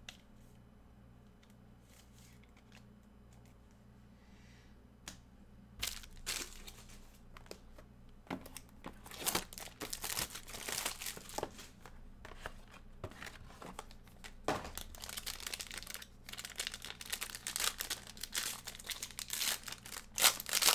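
Trading-card packaging being torn open and crinkled by hand: a quiet first few seconds, then bouts of crackling and tearing from about six seconds in, with a sharp snap near the end.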